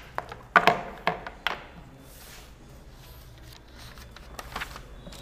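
A few short, sharp knocks or clicks, about four in the first second and a half, with fainter ones near the end.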